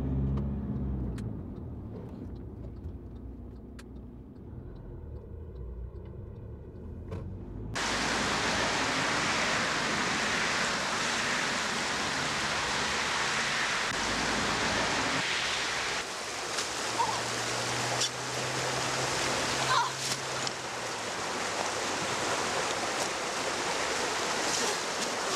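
Low road and engine rumble inside a moving car's cabin, then, switching suddenly about eight seconds in, a shallow rocky river rushing steadily and loudly, with a few brief knocks.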